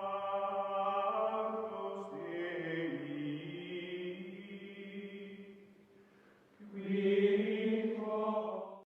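Outro music of sustained, choir-like held chords that change pitch in steps: one long phrase that fades out, then a second, louder phrase that cuts off abruptly near the end.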